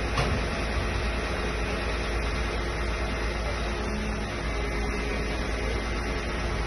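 Fire truck's engine running steadily, driving the aerial ladder's boom as its rescue basket is lowered.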